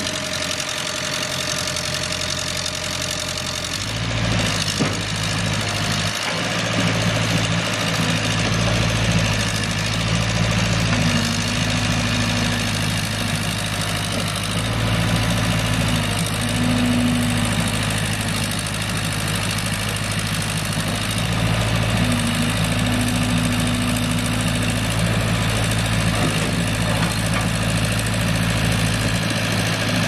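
JCB 1400B backhoe's Perkins four-cylinder diesel engine running steadily, its low note growing stronger about four seconds in.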